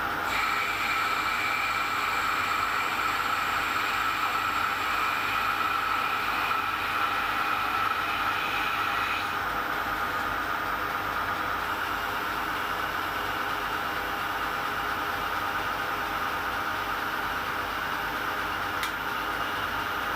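Metal lathe running with its cutting tool turning down a spinning workpiece: a steady machine hum with a higher whine that stops about nine seconds in, and a single click near the end.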